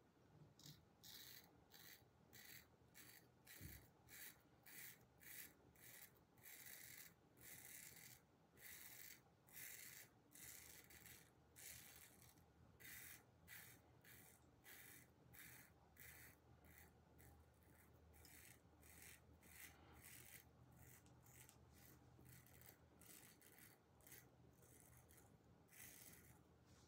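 Kampfe Bros Star safety razor scraping through lathered stubble in a long series of short strokes, about one or two a second. Faint rasping, growing softer near the end.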